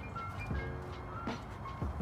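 Background music with short held notes and a few soft thumps.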